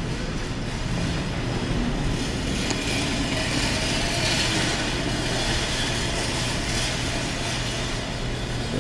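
Steady arcade background noise: machines running with a low electrical hum under a rushing hiss that swells in the middle.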